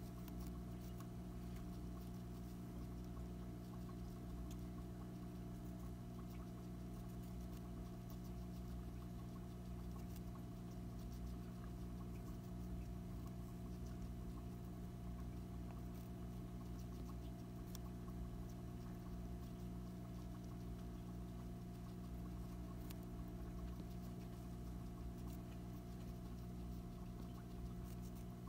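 A hamster nibbling and chewing a treat: small, quick crunching clicks scattered throughout, over a steady low hum.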